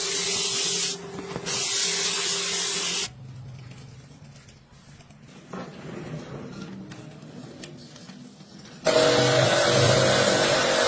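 High-pressure washer spraying water in loud hissing bursts. The spray stops abruptly about three seconds in, leaving a low hum, and starts again near the end.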